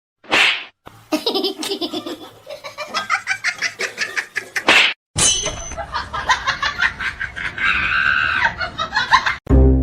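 People laughing in quick, repeated bursts, broken by two abrupt cuts.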